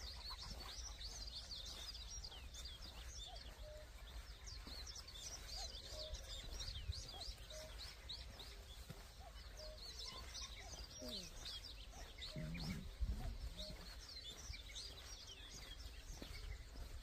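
Outdoor morning bird chorus: many small birds chirping and twittering throughout, with another call, a short lower note, repeating about once a second, over a low rumble of wind. About twelve seconds in there is a brief louder low sound and a knock.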